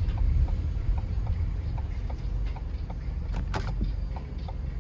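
Car cabin while driving: a steady low road-and-engine rumble with a turn signal ticking quickly and evenly. A brief sharper noise comes about three and a half seconds in.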